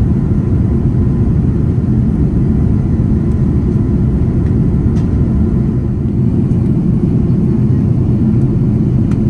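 Steady low rumble of an Airbus A330 airliner in flight, its jet engines and rushing airflow heard from inside the cabin beside the engine.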